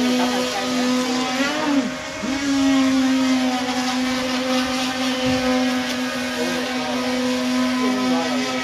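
Feilun FT009 RC racing boat's brushless electric motor running with a steady high whine, dipping briefly in pitch about two seconds in and coming back up as the throttle is eased and reapplied.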